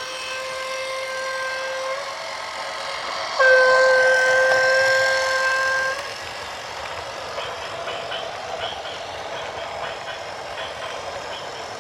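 A horn blowing one steady note, sounding much louder for about two and a half seconds partway through before it cuts off. Afterwards only a steady vehicle rumble with faint ticking remains.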